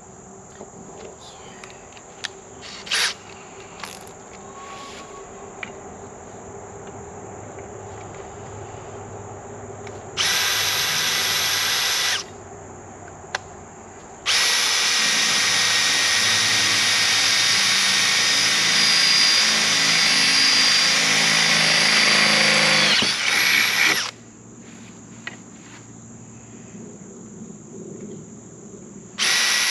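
Cordless drill running as it drills into a bracket: a two-second burst about ten seconds in, then a run of about ten seconds whose pitch sags just before it stops, and another start near the end. A few sharp clicks of handling come in the first seconds.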